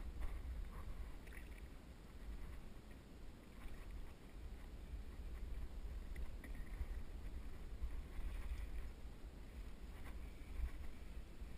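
Steady low rumble on a kayak-mounted camera's microphone, with a few faint clicks and rustles from handling a spinning rod and reel.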